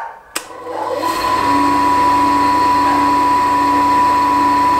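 Two sharp clicks, then a D-bit universal tool and cutter grinder's motor and wheel spinning up over about a second and running steadily with a hum and a whine.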